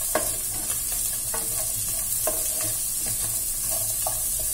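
Chopped carrots, green beans and green chillies sizzling in a little oil in a nonstick kadai, stirred with a wooden spatula that scrapes across the pan about once or twice a second.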